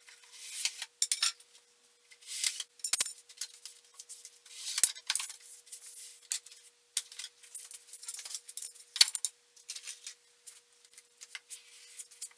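Hands sliding and rubbing a sheet of wood veneer down onto a contact-cemented surface, with papery rustling and scraping. Three sharp wooden knocks come, about 3, 5 and 9 seconds in, as the spacer dowels are pulled out and laid down.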